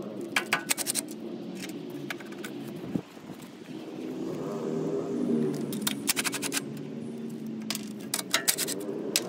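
Cordless impact driver backing out the 10 mm bolts that hold the mower engine's sheet-metal shroud, in several short bursts, with metallic clicks and the rattle of loosened bolts and tool.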